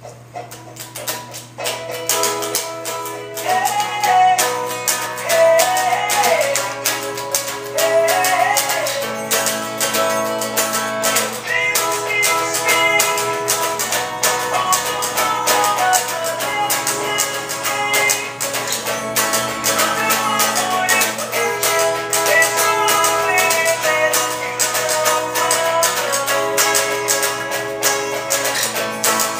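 Electric guitar strumming a repeating four-chord accompaniment in a steady rhythm, chords fretted high on the neck around the seventh fret without a capo, with a melody line gliding above the strumming in places and a steady low hum underneath.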